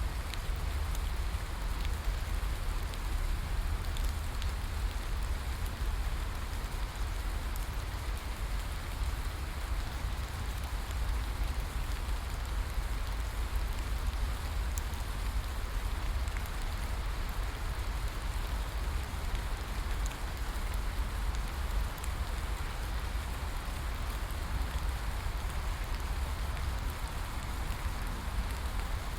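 Steady rainfall: an even hiss of rain with scattered sharper drop ticks and a low rumble underneath.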